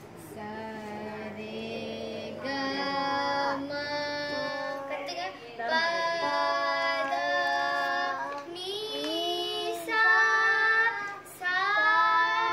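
Children singing a song together, in long held notes that step from pitch to pitch, with short breaks between phrases.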